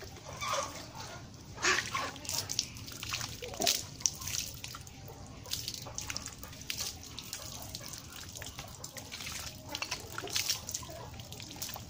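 Water scooped from a plastic bucket with a plastic dipper and poured over a horse's neck and back, in irregular splashes and drips as the coat is rinsed.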